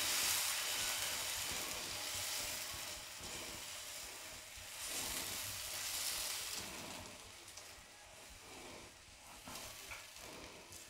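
Multigrain cheela batter sizzling on a hot tawa as a steel spoon spreads it out into a round. The sizzle swells with the spreading strokes and fades away over the second half.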